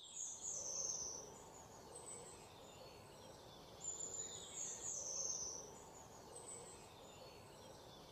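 Faint high-pitched chirps in two clusters, one near the start and one about four seconds in, over a low hiss.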